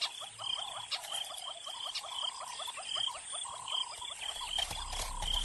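Chorus of frogs in the African bush: many short chirping calls repeated several times a second, layered over one another.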